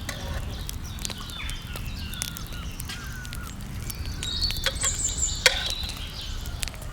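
Outdoor ambience of birds chirping and calling, with a low steady rumble, scattered sharp clicks and one louder knock about five and a half seconds in.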